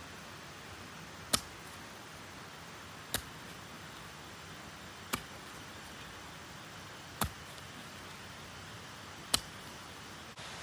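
Five sharp strikes, evenly spaced about two seconds apart, over a steady hiss.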